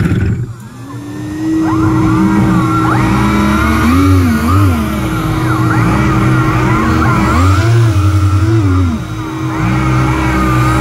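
Large RC hovercraft's electric motors and Master Airscrew 11x10 propellers running: the motors ease off briefly near the start, then a steady tone sets in from the lift fan while the thrust props rise and fall in pitch several times as the throttle is worked.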